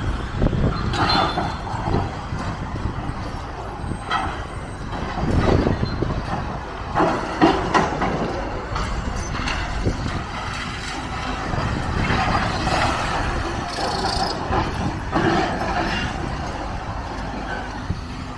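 Heavy demolition machinery running with a continuous low rumble, broken by irregular knocks and crashes as a building is knocked down.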